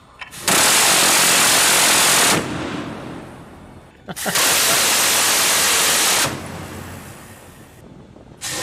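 Phalanx CIWS's 20 mm M61 Vulcan rotary cannon firing two bursts of about two seconds each. Each burst is one continuous rattle that stops sharply and trails off into a fading echo, and a third burst begins right at the end.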